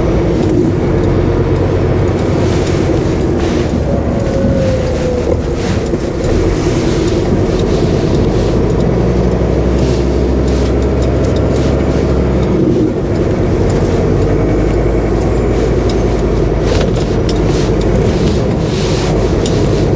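HGV's diesel engine running at low speed through a tight turn: a steady low drone with a short dip in level about two-thirds of the way through.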